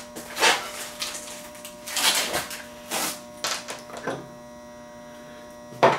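Hands working the supply reel table off a Teac A3340 reel-to-reel deck's motor shaft: a run of short scraping, rattling handling noises, the sharpest one just before the end, over a steady electrical hum.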